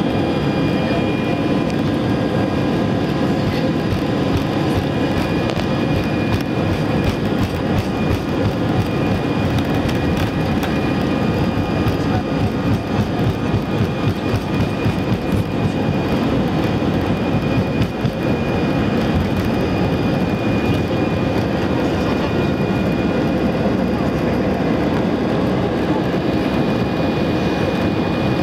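Airbus A319 cabin noise during take-off: the jet engines run steadily at take-off power, with a dense low rumble and a faint high whine. The rumble wavers in the middle of the run and turns smoother near the end, once the aircraft is off the ground and climbing.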